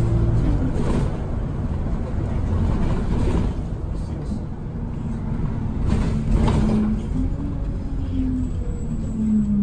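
Interior sound of an Alexander Dennis Enviro200 single-deck bus on the move: a steady engine and road drone. A steady whine from the drivetrain drops away shortly after the start and comes back about halfway through, wavering slightly in pitch.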